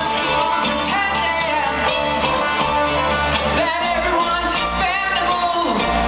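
Live bluegrass band playing, with a man singing lead over plucked strings and an upright bass.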